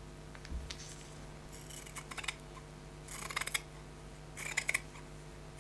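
Kevlar shears cutting through woven carbon/Kevlar fabric: three snipping cuts, each about half a second long, about a second and a half apart.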